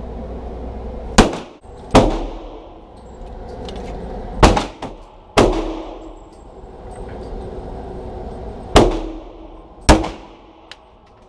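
Six handgun shots fired in three quick pairs, each ending in a short echo off the walls of an indoor range, over a steady low background rumble.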